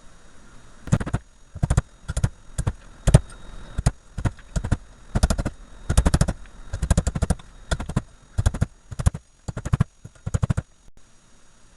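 Metal hammering on a starter motor armature, driving its copper bars back to loosen them: quick runs of two to four sharp blows, repeated over and over, stopping shortly before the end.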